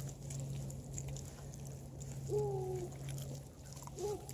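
Black-and-tan beagle-cross puppies feeding on raw meat, one whining once for about half a second a little over two seconds in and giving a brief second whine near the end, over faint wet chewing clicks. A low steady drone underlies it and stops about three and a half seconds in.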